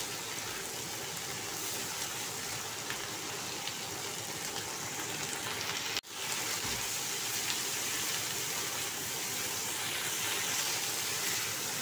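Tempe and chilies sizzling in a wok with a splash of water and sauce, stirred with a spatula: a steady hiss of frying and bubbling. It cuts out for an instant about halfway through and picks up again.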